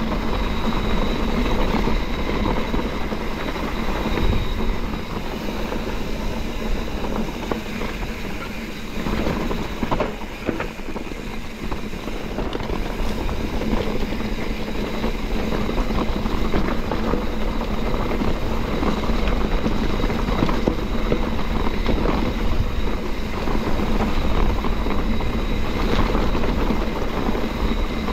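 YT Capra mountain bike riding down a rough, rocky dirt singletrack: continuous rumble of tyres on loose rock and the bike rattling, with wind rushing over the microphone. The noise eases briefly about ten seconds in, then builds again.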